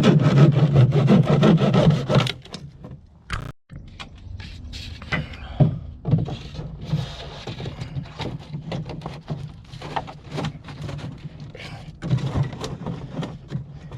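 Scraping, rubbing and knocking from hand work cutting out the pipe notches in a sump pit basin. The noise is loudest and densest in the first two seconds, then continues as irregular short scrapes and knocks.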